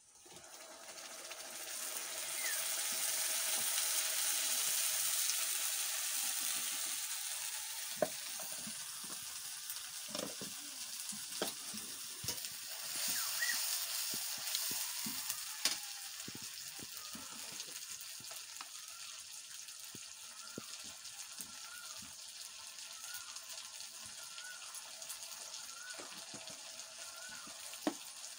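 Orange masala paste poured into hot oil in a metal kadai, setting off a sizzle that swells over the first few seconds and then slowly eases off. A metal spatula clinks and scrapes against the pan as the paste is stirred.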